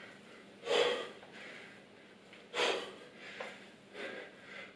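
A man breathing out hard with the effort of dumbbell thrusters, one forceful exhale per rep. There is a strong breath about a second in, another near three seconds, and a softer one near the end.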